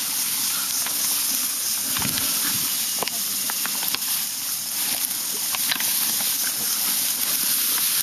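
Tall grass rustling and swishing against bodies and bags as people push through it on foot, a steady hiss with scattered small clicks and knocks.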